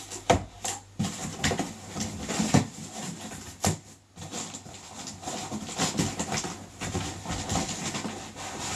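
Cardboard packaging being handled: a box lid lifted off and inner cardboard flaps slid and pulled out, with scattered rustles, scrapes and sharp knocks of card against card and the table.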